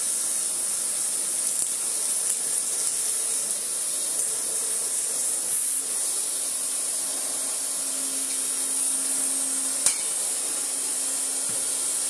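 1980 Hoover Constellation 867A canister vacuum cleaner running steadily: a rushing hiss of air drawn through its hose over a steady low motor hum. A sharp tap about ten seconds in.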